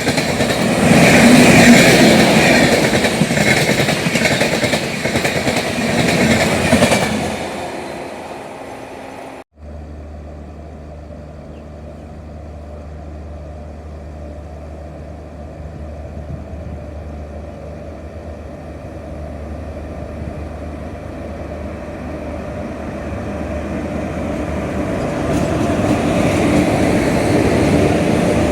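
Passenger train coaches running on the track with loud wheel and rail noise that fades away after about seven seconds. After an abrupt cut, a quieter steady low hum follows, and the train noise builds up gradually again toward the end.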